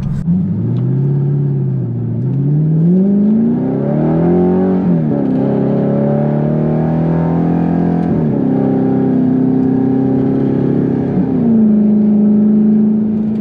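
Audi R8's 4.2-litre V8 engine running under acceleration, its revs climbing and then dropping sharply about five seconds in at a gear change. It then holds steadier revs, stepping up twice.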